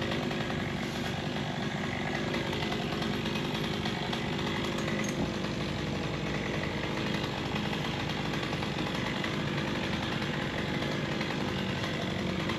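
Chainsaw running steadily, cutting away the rotten part of a storm-broken tree limb.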